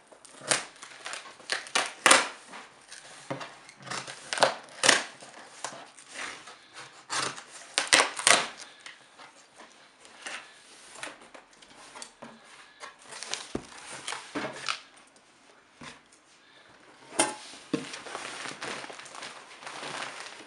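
Cardboard shipping box being handled and opened: an irregular series of sharp scrapes, rips and knocks of cardboard and packing tape, with a quieter pause about three quarters of the way through.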